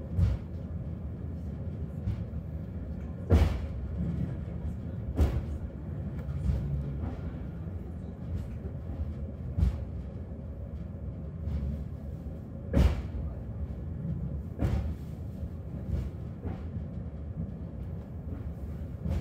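Hakone Tozan Cable Car running downhill: a steady low rumble of the car on its rails, with occasional sharp clunks a few seconds apart.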